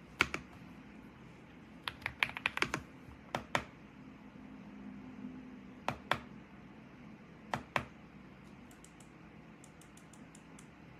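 Keys on a mechanical keyboard being pressed, sharp clacks often coming in pairs: a single press at the start, a quick run of several keys about two seconds in, a few more spaced presses, then fainter rapid taps near the end.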